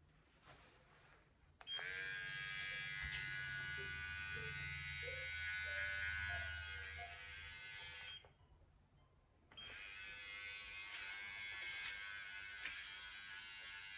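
New OVLUX cordless T-blade hair trimmer on its first run, its blade freshly sprayed. It switches on about a second and a half in with a steady buzz, cuts off around eight seconds, and comes back on about a second and a half later.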